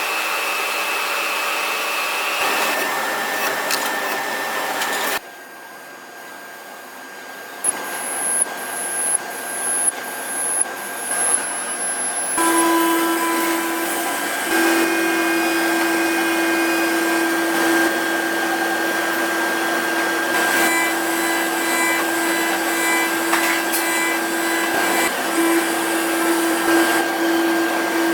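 CNC machine cutting and milling, heard in several short spliced stretches of steady machining whine and cutting noise. Near the middle there is a run of about six short rising whines, less than a second apart.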